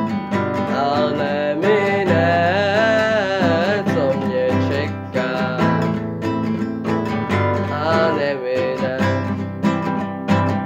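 Nylon-string classical guitar strummed in a steady rhythm, with a wordless voice carrying a wavering melody over it twice.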